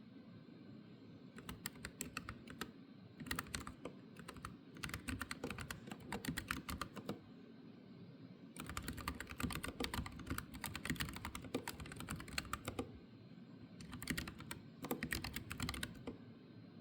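Typing on a Keychron K15 mechanical keyboard: fast runs of keystroke clicks in about half a dozen bursts, with brief pauses between them. The longest run starts at about the middle and lasts around four seconds.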